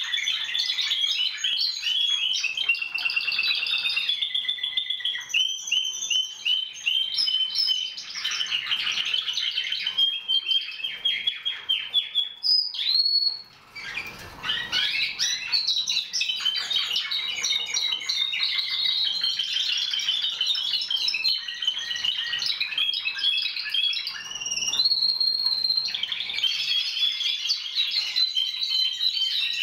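Timbrado Español canaries singing, a dense run of fast trills and chirps that goes on almost without a break. There is a short pause about halfway through.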